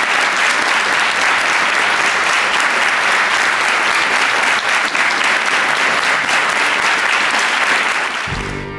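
Audience applauding, dense and steady, easing a little near the end.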